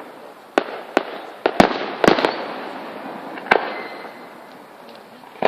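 Fireworks going off: about eight sharp bangs at irregular intervals, each trailing off in a short echoing tail, the loudest pair about a second and a half to two seconds in.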